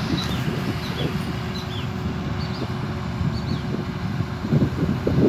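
Vishal 435 combine harvester running steadily, a continuous low rumble with a constant hum. Short high chirps of small birds sound repeatedly over it.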